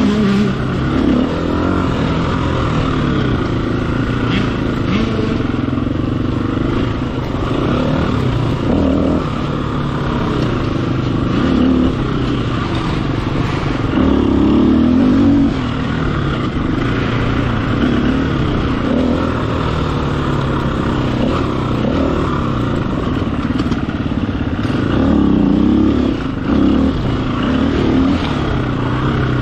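Dirt bike engine running hard, its pitch climbing and falling continuously as the throttle is worked, with louder bursts of revs about halfway through and again near the end.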